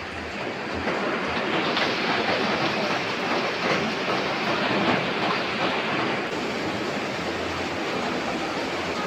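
Heavy rain pouring down, a steady rushing hiss.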